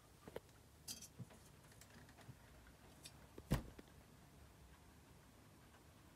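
Near silence with a few faint clicks early on and one short knock about three and a half seconds in.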